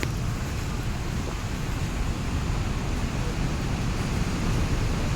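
Steady rushing noise of wind buffeting the microphone, with water pouring through the dam's open gate underneath, growing slightly louder toward the end.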